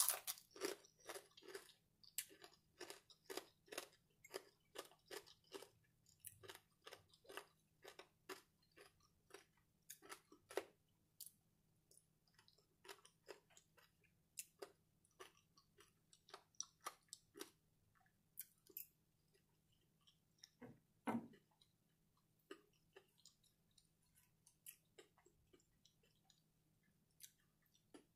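Close-miked chewing of crispy bacon and French toast: a run of small crunches about two or three a second, thinning out after about ten seconds, with one louder crunch about two-thirds of the way through.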